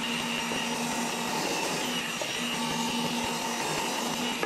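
Bench drill press running steadily, its motor whining and hissing as the bit bores holes through a plywood board. A low hum in it drops out and comes back several times.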